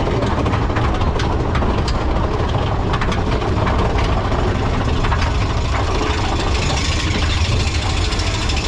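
Mine-train roller coaster running along its track, heard from a rider's seat: a steady, loud rumble of the wheels with wind rushing past, and a few sharp clacks in the first three seconds.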